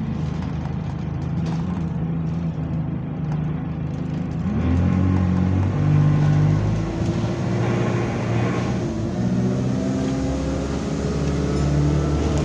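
Single-deck bus engine heard from inside the passenger saloon, running and then pulling harder, its pitch rising about four and a half seconds in and climbing again in steps near the end as the bus accelerates through the gears. The engine has a moaning note, and its turbo is one the uploader calls burst.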